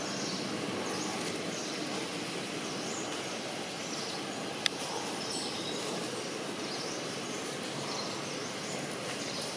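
Outdoor woodland ambience: a steady background hiss with faint high chirps from birds or insects, and a single sharp click about halfway through.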